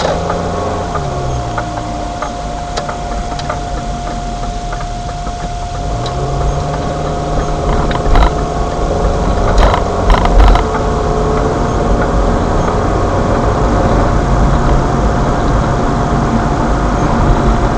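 A car's engine and road rumble heard from inside the cabin while driving. The engine pitch drops in the first two seconds and climbs again about six seconds in as the car pulls away, with a steady high whine throughout and a few knocks or rattles about eight to ten seconds in.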